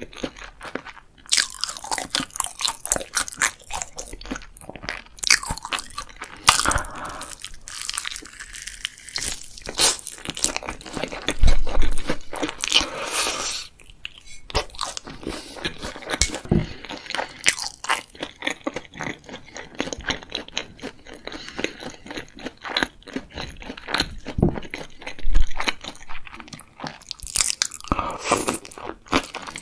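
Close-miked eating: a person biting and chewing crunchy food, with dense, quick crunches throughout and louder bites about twelve seconds in and again about twenty-five seconds in.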